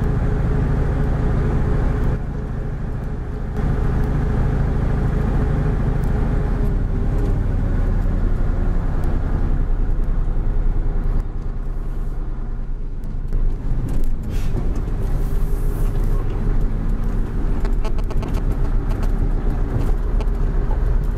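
Truck engine running with road noise, heard from inside the cab while driving. The engine note and loudness drop briefly about two seconds in and again around eleven to fourteen seconds in.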